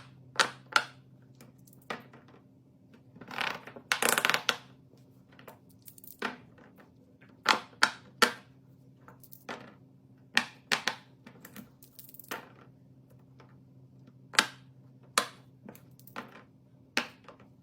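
Scattered sharp clicks and taps of small hard objects being handled, with a longer rustling scrape about four seconds in, over a steady low hum.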